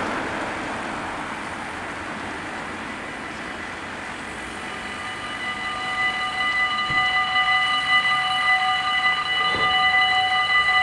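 Dutch automatic level-crossing warning bells start ringing about five seconds in and keep up a rapid, steady ringing as the crossing activates for an approaching train. Before that, a rush of noise fades over the first couple of seconds.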